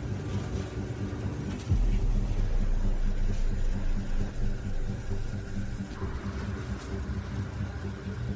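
Steady low rumble with a faint hum, like an engine running, which grows louder about two seconds in.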